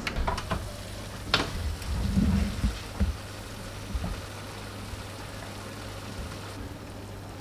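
Light kitchen handling sounds: a few sharp clicks and a low knock in the first few seconds, then only a steady low hum.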